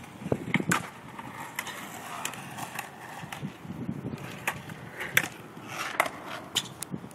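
Skateboard wheels rolling over rough concrete, with sharp clacks and knocks scattered throughout.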